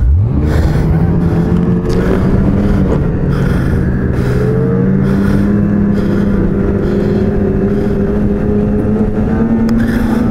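Ski-Doo snowmobile engine revving up sharply, then held at high revs with its pitch creeping slowly higher as the sled ploughs through deep powder, throwing snow over the hood.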